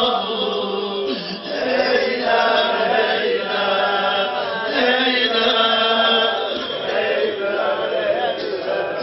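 Men's voices chanting a Shia mourning lament (noha), a melodic line that glides up and down without a break.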